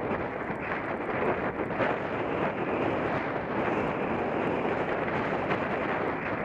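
Wind buffeting the microphone of a bicycle-mounted camera while riding over uneven grass, with small knocks and rattles from the bumps.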